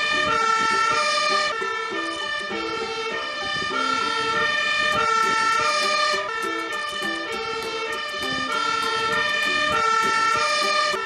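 Fire engine's two-tone siren sounding, switching back and forth between a higher and a lower note, from a Magirus aerial-ladder fire truck.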